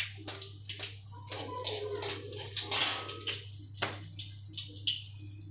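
Mustard seeds and a dried red chilli spluttering in hot oil in a kadai, with irregular sharp pops and crackles over a light hiss: the tempering (phoron) for the dal.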